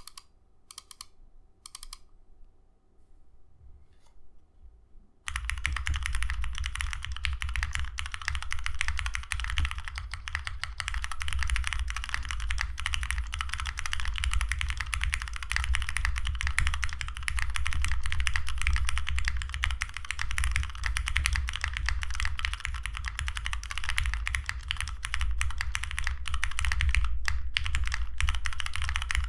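Typing on a Foxlab Leaf 65 mechanical keyboard with lubed Cherry MX Black Hyperglide linear switches in an FR4 plate, under PBT keycaps. A few single key clicks come first, then fast, continuous typing starts about five seconds in.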